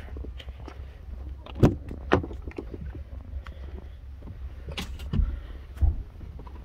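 Chevrolet Tahoe front door being unlatched and opened: two sharp clicks and knocks, then a few more knocks later on, over a low steady rumble.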